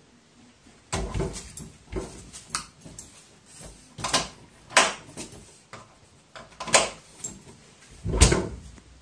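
Crow pulling and pecking at a metal lever door handle: the handle and latch rattle and clack, and the door knocks in its frame. About seven irregular knocks, the loudest a heavier thud near the end.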